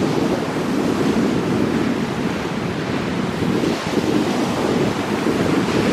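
Ocean surf breaking on the beach, mixed with strong wind buffeting the microphone: a steady, dense rushing noise.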